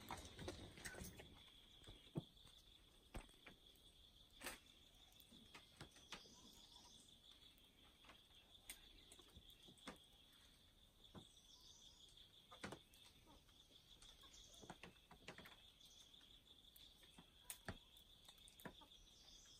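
Faint, steady insect trill, a cricket-like pulsing drone, with a few soft bird chirps and scattered sharp clicks over a quiet forest background.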